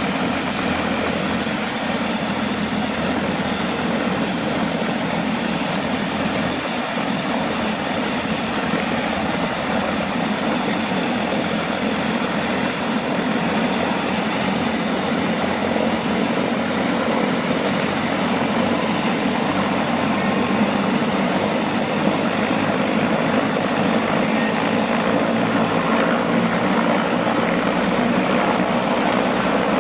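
Eurocopter AS350B2 helicopter running, its turboshaft engine and turning rotor making a steady sound that grows a little louder in the second half.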